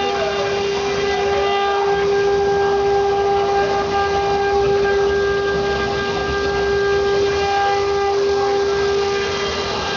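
BMG 1325 CNC router's spindle whining at a steady pitch while the bit cuts wood, with rough cutting noise under the whine.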